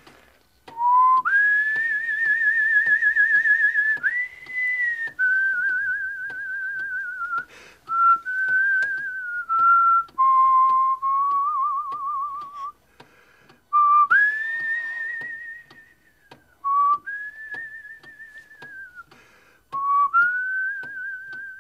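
A person whistling a slow tune with a wide, wavering warble on each note, in phrases broken by short pauses for breath.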